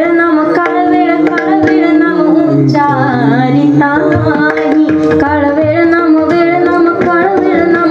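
Woman singing a Marathi devotional kirtan song, with tabla and a steady held drone note beneath the melody.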